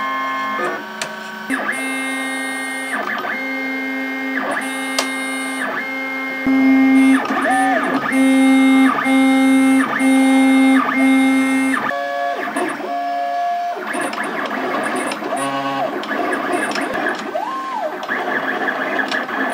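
Stepper motors of a LulzBot AO-101 RepRap 3D printer whining as it prints. The sound is a run of steady pitched notes broken by short pauses, and several notes rise, hold and fall in pitch as the axes speed up and slow down. It is louder for a stretch in the middle.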